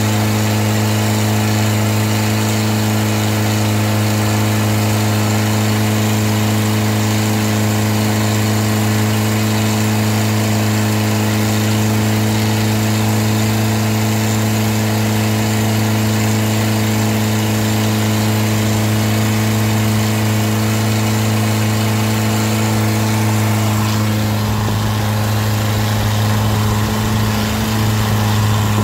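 Longtail boat's exposed, open-mounted car-type engine running steadily at cruising speed, a loud constant drone over the hiss of spray and wind. About 24 seconds in the sound shifts, its higher notes fading and a lower rumble coming up.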